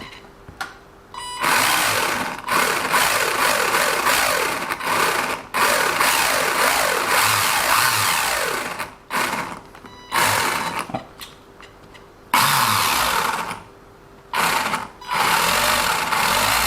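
WLToys 144001 RC car's electric motor driving its centre drive shaft and metal gear in repeated throttle bursts, about five or six, each followed by a falling whine as it spins down. It is run with the wheel drive shafts out, to check whether the grinding from the over-long shaft ends, now sanded down by about a millimetre, has gone.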